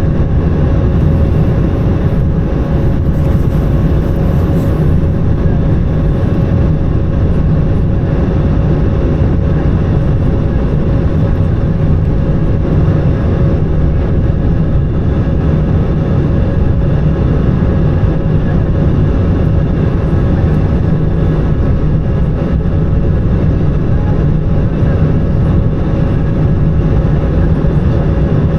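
Steady cabin noise of an Airbus A220-300 on approach: the rush of air and the Pratt & Whitney PW1500G geared turbofans, heavy in the low end, with a steady hum running through it.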